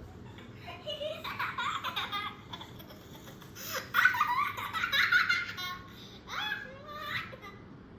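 A baby laughing, played as a sound effect, in several bouts of high-pitched giggling. The loudest bout comes about four to five and a half seconds in.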